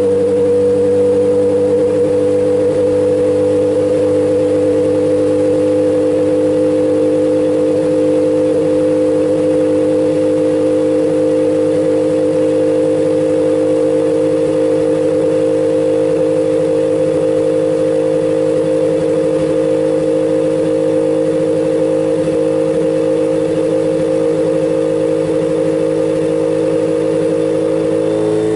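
Radical race car's Suzuki Hayabusa-based inline-four engine running on a chassis dyno, held at a steady speed with an unchanging note.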